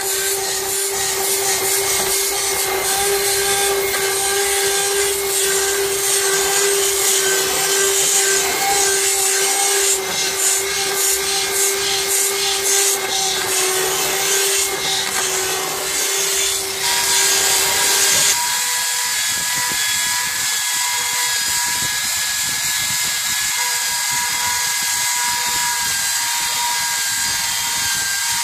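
Electric drill spinning a Tercoo rotating stripping disc against a boat hull, grinding off old tar: a steady motor whine over a scraping hiss. About 18 seconds in the pitch changes abruptly as a different drill and disc take over, stripping paint.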